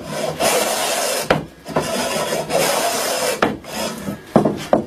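Hand plane shaving along a wooden board in two long strokes, taking down a slight bulge in the middle of the board. A few sharp knocks follow near the end.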